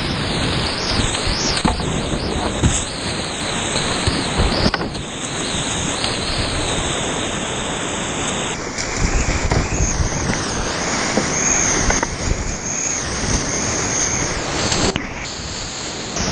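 Whitewater rapids rushing loudly around a kayak, heard close up with water splashing over the microphone. The roar changes abruptly a few times, about five, nine and fifteen seconds in.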